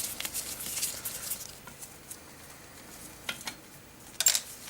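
Rustling and small metallic clicks and clinks from handling a car amplifier's metal case and parts, with two sharper clicks near the end.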